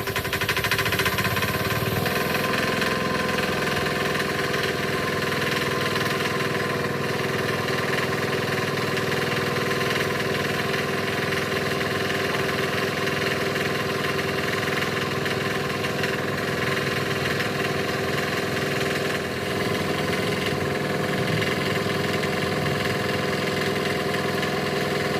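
An engine running. It speeds up about two seconds in and then holds a steady pitch.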